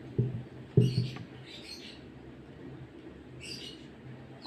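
Short high-pitched chirps in quick clusters, about a second in and again past three seconds. Two dull low thumps come near the start and are the loudest sounds.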